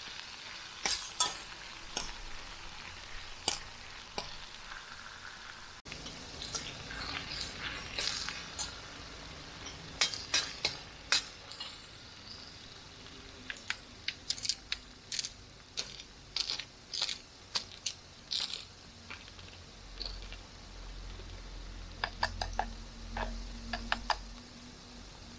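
A spoon or spatula stirring and clinking against a cooking pan of frying onions and tomatoes, with a light sizzle under irregular sharp taps.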